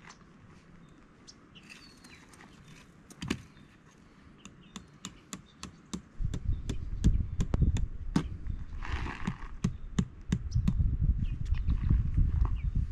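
Tent stake being tapped into gravelly ground: a run of sharp taps, about two to three a second. A low rumble joins about halfway.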